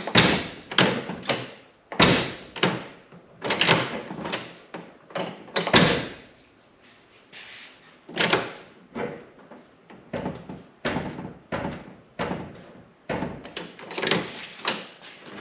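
A 1992 Pontiac Firebird's steel door being worked open and shut on freshly installed hinge pins and bushings: a long irregular series of knocks and latch clunks, some a few tenths of a second apart, with a short pause partway through. The door still drags slightly as it closes.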